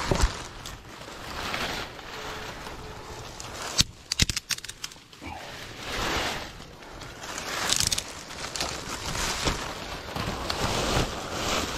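Leaves and woody weed stems rustling and snapping as they are pulled and broken by hand, in repeated swells of rustling with a cluster of sharp cracks about four seconds in.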